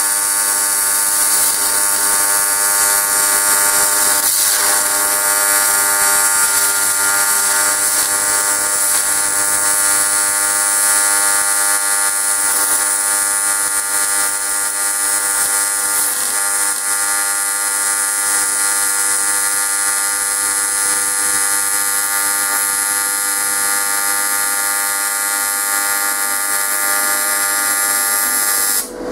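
AC TIG welding arc on aluminium, fed with ER4043 filler rod: a steady, loud buzz with a hiss over it that cuts off just before the end as the arc is broken.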